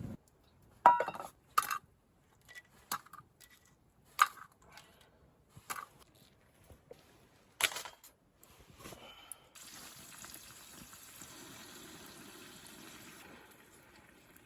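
Camp cookware being handled: a handful of separate metal clinks and knocks. Then a few seconds of liquid being poured, starting and stopping abruptly.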